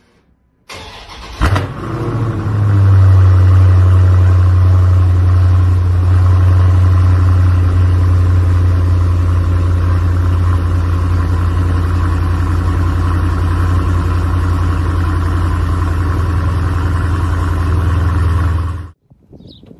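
Dodge Challenger engine cold-starting: the starter cranks briefly, the engine catches with a sharp bark and revs up, then settles into a loud, steady fast idle. The sound cuts off suddenly near the end.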